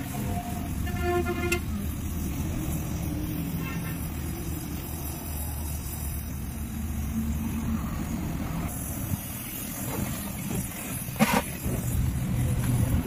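Gas welding torch flame running steadily with a low rushing noise as aluminium filler rod is melted into an alloy wheel rim. A brief sharp knock about eleven seconds in.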